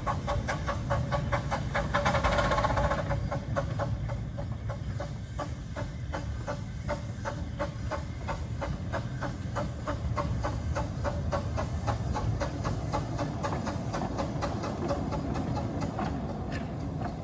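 Miniature steam locomotive working a train past, its exhaust beating in a quick, even rhythm with a hiss of steam, loudest in the first few seconds.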